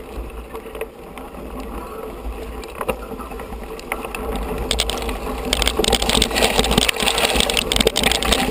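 Mountain bike rolling and rattling over a rough dirt singletrack, with a steady low rumble. Tall grass and brush swish against the bike, growing louder and denser from about halfway in.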